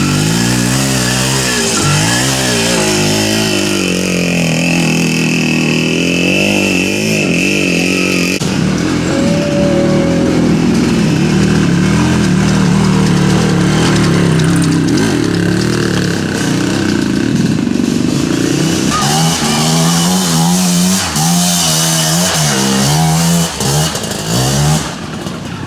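Classic enduro motorcycle engines revving up and down as the bikes ride past one after another on a muddy trail. The engine note keeps rising and falling, with quick rev swings about three-quarters of the way through.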